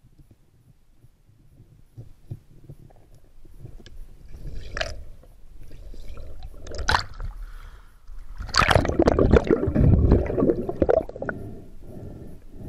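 Water gurgling and rushing around an underwater action camera as a freediver moves, with bubbles passing the lens. It starts quiet, a couple of short sharp sounds come about five and seven seconds in, and the loudest rush runs from about eight and a half to eleven seconds in.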